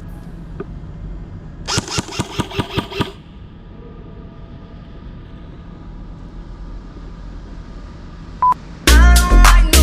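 A quick run of about ten sharp cracks in a second and a half, typical of an airsoft gun firing, over a low steady rumble. Near the end, a short beep and then loud hip-hop music with a heavy beat starts.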